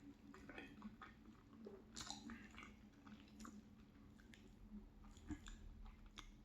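Faint chewing of a mouthful of macaroni and cheese, with irregular soft wet mouth clicks and smacks.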